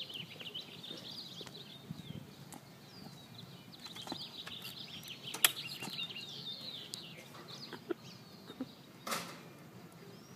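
Small birds chirping and twittering steadily in the background, with a few sharp clicks and knocks, the loudest about five seconds in.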